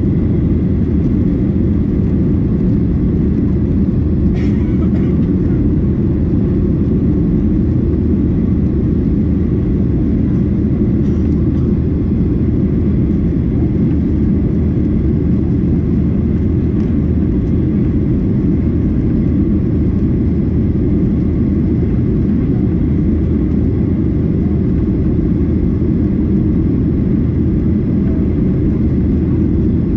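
Steady low rush of cabin noise inside a Boeing 737-800 in flight: airflow and the hum of its CFM56-7B turbofan engines, even throughout.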